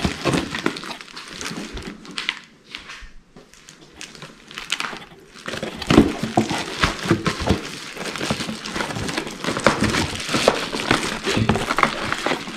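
Bubble wrap crinkling and cardboard rustling and knocking as a wrapped item is pressed into a cardboard box by hand; it goes quieter for a few seconds about two seconds in, then the crinkling and knocks pick up again.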